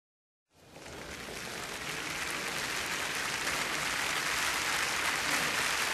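Crowd applause fading in over about a second and then holding steady as a dense, even clatter of clapping.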